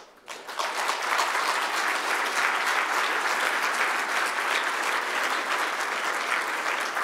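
Applause from a large seated audience: many people clapping, building up within the first second and then holding steady.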